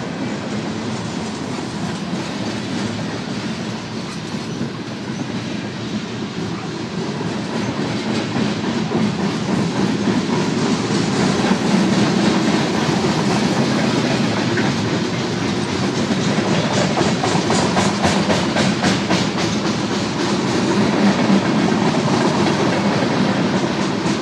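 Freight train cars rolling by, a steady rumble that grows louder about a third of the way in, with a run of rapid clicks of wheels over rail joints in the second half.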